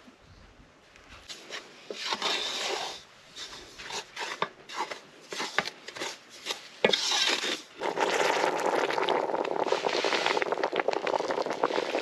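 Wooden spoon scraping and knocking in an aluminium pot of dry flour, in irregular strokes. From about eight seconds in, a steady rushing splash as hot water is poured from an aluminium kettle into the flour.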